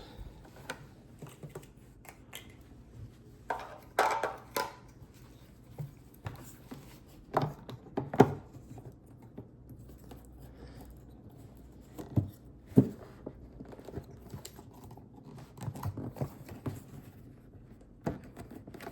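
Hands working the plastic parts and wiring inside a car headlight assembly: scattered clicks and knocks with short scraping rustles, a sharp knock about eight seconds in and another around thirteen.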